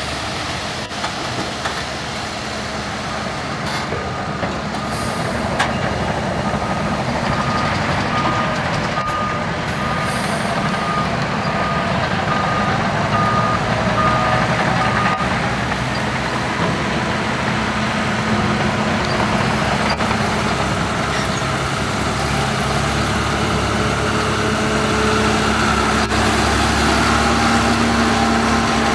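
John Deere tractor's diesel engine running under load as it pulls a tipping trailer over soil, getting a little louder near the end. A reversing alarm beeps steadily, about one and a half beeps a second, for several seconds in the first half.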